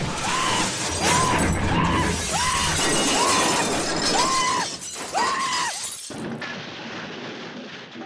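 Cartoon crash sound effects: a continuous clatter of smashing and breaking, with a repeated rising-and-falling whoop about every 0.7 seconds over it. The whoops stop about six seconds in and the clatter fades out.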